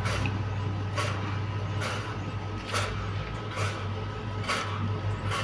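Electric turbine fan running with a steady low hum and a strange, regular noise that repeats about once a second.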